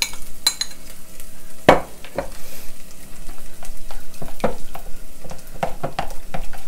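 Metal spoon stirring and mashing boiled potato into water in a plastic bowl: irregular scrapes, clinks and wet sloshing, with one louder knock a little under two seconds in.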